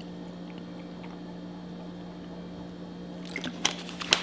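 A person drinking from a plastic water bottle, with soft swallowing and liquid sounds. A few sharp crinkles and clicks of the plastic bottle and its cap come near the end. A steady low hum runs underneath.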